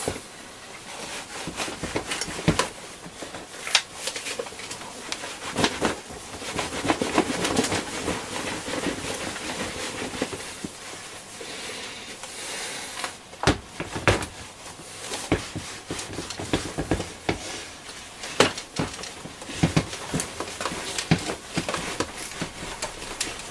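Soft cloth buffing the case of a small transistor radio, a steady rubbing swish with frequent clicks and knocks as the radio is handled.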